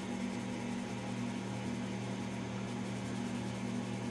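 Steady low hum over an even hiss: background room noise such as a fan or electrical hum.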